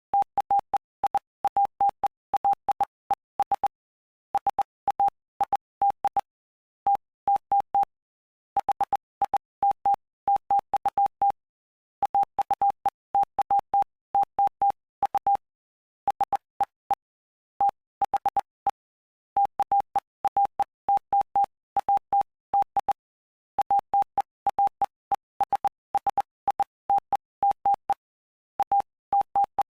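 Morse code sent as a single steady mid-pitched tone, keyed in short dots and longer dashes grouped into letters and words, with brief pauses between words. It spells out the text of Mark chapter 5, and a faint click marks each keying.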